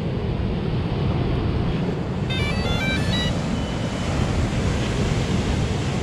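Wind buffeting the microphone over breaking surf, a steady rushing noise. About two seconds in, a quick run of short electronic beeping notes plays, followed by one brief beep: the start-up tune of a quadcopter drone being powered on.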